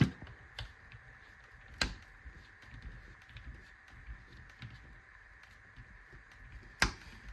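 Faint clicks and taps of small metal and plastic rifle parts being handled on a workbench, with two sharper knocks, one about two seconds in and one near the end.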